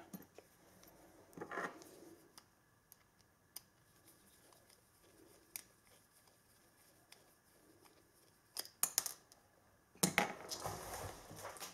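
Small pieces of plastic heat shrink tubing being handled: scattered faint clicks and taps, then a louder stretch of rattling and rummaging about ten seconds in.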